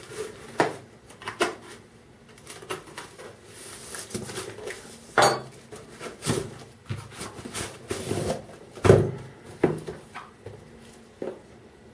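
Cardboard parcel being opened by hand: a knife slitting packing tape, then cardboard scraping and rustling as a boxed item is slid out. Scattered clicks and knocks run through it, with a sharp metallic clack about five seconds in as the knife is laid on the table, and a heavier thump about nine seconds in.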